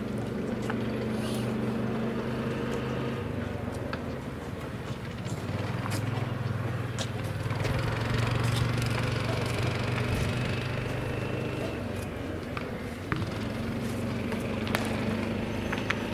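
Small engine of a riding infield groomer running steadily as it drags the dirt infield, its hum rising and falling in strength, with occasional short clicks.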